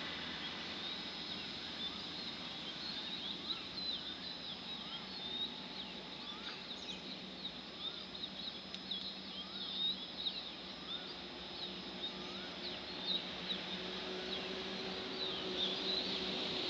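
Many small birds chirping in quick, overlapping short calls, with some louder rising chirps every second or so, over a faint steady low hum.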